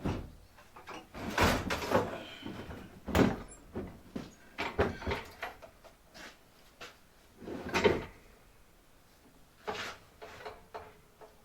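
Irregular metal clunks, knocks and scraping as a heavy band saw is shifted and manoeuvred toward its stand, with the loudest knocks about three seconds and about eight seconds in.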